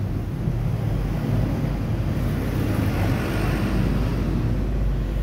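A motor running with a steady low rumble that swells a little around the middle.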